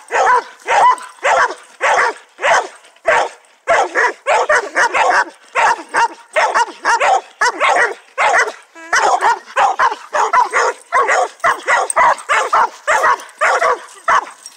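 Dogs barking in a fast, unbroken string, about two barks a second, at an animal held in a live trap.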